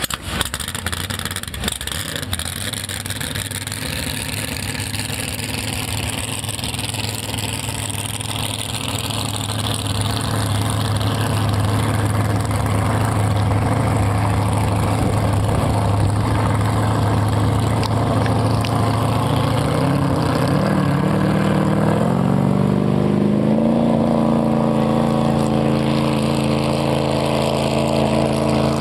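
Supercharged big-block Chevy V8 of a drag boat running, growing louder over the first ten seconds. Its pitch climbs about twenty seconds in as the revs rise, then holds steady at the higher note.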